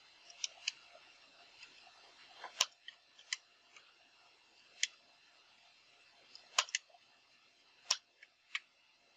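Single computer-keyboard keystrokes, a sparse, irregular series of short sharp clicks, some in quick pairs, over faint background hiss.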